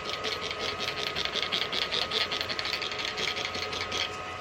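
Lube being worked around a motorcycle tire's bead to help it seat: a quick, even run of short swishes, about seven a second.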